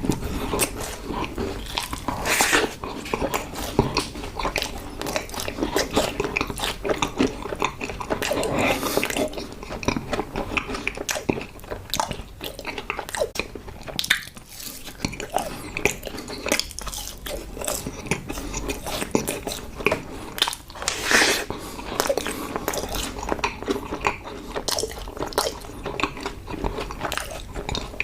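Close-up mukbang chewing and biting of yakgwa, Korean honey-glazed fried cookies: a dense, continuous run of mouth clicks and crunches, with a few louder bites now and then.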